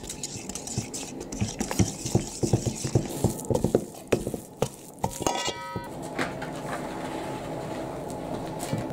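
Utensil stirring flour and water into a stiff, shaggy dough in a large stainless steel bowl, scraping and knocking against the metal in quick irregular clicks. A brief high whine comes a little past halfway, and the stirring is quieter after that.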